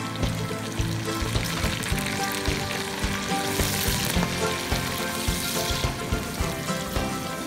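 Chopped tomatoes sizzling in hot oil in a pot with browned pork, onions and garlic, being stirred with a spatula. The sizzle is strongest in the middle. Background music with a beat plays throughout.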